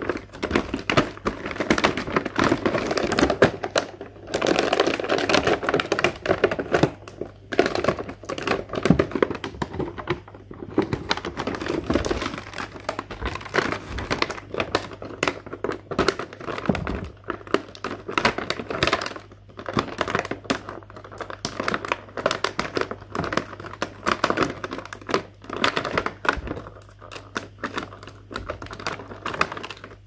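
Clear plastic packaging crinkling and crackling as it is handled and pulled open around small plastic toys, a dense run of small crackles with no let-up.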